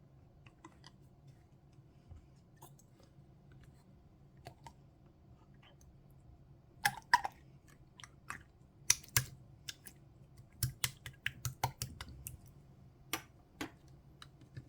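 Clear slime being handled, giving irregular sharp clicks and pops. They are faint and sparse at first, then louder and more frequent from about halfway through.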